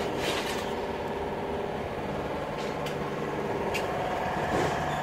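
Steady hum of an engine idling, with a few faint clicks.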